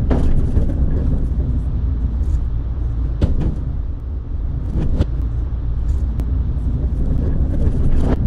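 Steady low rumble, with four sharp metal knocks, one at the start, two in the middle and one near the end, as a man works on a steel log bunk on a flatbed trailer deck.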